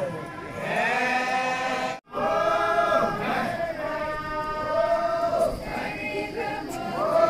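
A group of voices singing a traditional Naga chant together, in long held notes that rise and fall. The sound cuts out for a moment about two seconds in, then the chant goes on.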